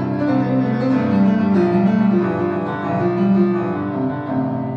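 Live band music in an instrumental gap between vocal lines, with keyboard chords prominent in a steady run of sustained notes.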